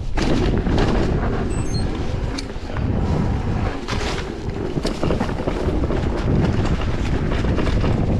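Wind buffeting the microphone as an electric mountain bike rolls fast over a rough dirt and grass trail, with repeated sharp knocks and rattles from the bike over bumps.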